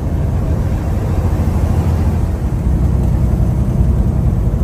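Steady low rumble of a semi-truck's engine and road noise, heard inside the cab while driving at road speed, growing slightly louder about halfway through.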